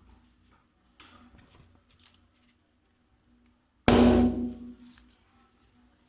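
A balloon bursting with one sudden loud pop about four seconds in that dies away over about a second, after faint handling sounds.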